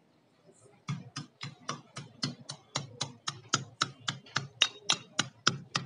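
Pestle pounding garlic and ginger in a small steel mortar: a steady run of sharp metallic strikes, about four a second, starting about a second in.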